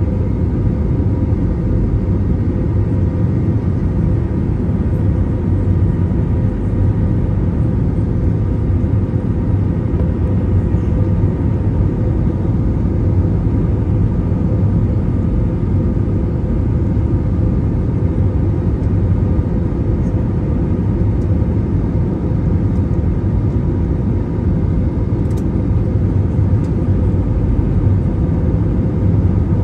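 Jet airliner cabin noise heard from a window seat during the descent on approach: the steady low rumble of the engines and rushing air, with a faint steady whine held over it.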